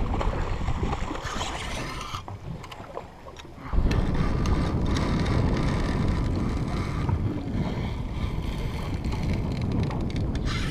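Wind buffeting the microphone over open water, with water moving around a small aluminium boat's hull. The wind drops away for about a second and a half, two seconds in, then picks up again, with a few light clicks.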